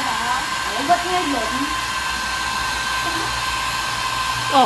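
Hair dryer running steadily with a constant whine, blowing over newborn puppies to dry them.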